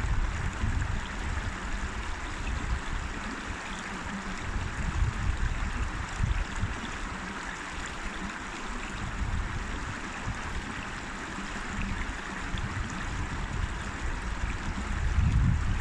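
River water flowing and rushing steadily, with irregular low rumbles swelling underneath, strongest about five seconds in and near the end.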